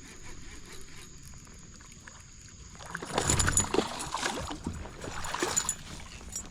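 Kayak moving on the water: a low, even wash of water, then two louder swells of splashing and sloshing in the second half.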